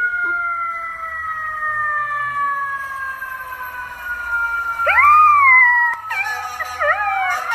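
A dog howling: a long, drawn-out note that slowly falls in pitch. About five seconds in it is joined by a rising-and-falling howl, then quick wavering howls near the end.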